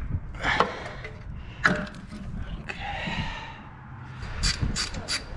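Hands working a spark plug wire off the V8's coil pack: a few short clicks and scuffing as the plug wire boot is twisted and pulled free.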